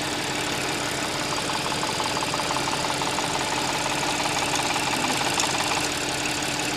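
Audi S-model engine idling cold, with an abnormal fast rattle that slowly builds in about a second in and fades away again near the end over the steady engine hum. It is the cold-start engine noise the customer reports, plain when cold and not heard once warm.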